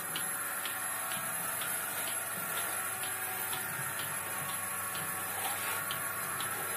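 Milking-machine pulsator on a single-bucket milker ticking evenly about twice a second, over the steady hum of the running vacuum pump.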